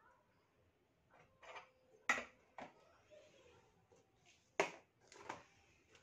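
Several sharp clicks and taps at irregular intervals, the loudest about two seconds in and again a little past halfway.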